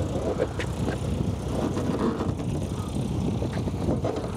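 Steady low engine rumble with a few light clicks.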